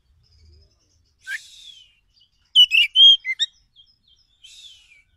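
Oriental magpie-robin (kacer) singing: a quick, loud phrase of varied whistled notes about two and a half seconds in, with fainter harsh, rasping calls before it and near the end.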